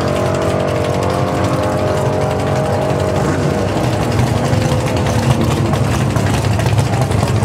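Drag-racing car engines running after a run, several tones slowly falling in pitch. About halfway through, a deeper engine rumble grows louder.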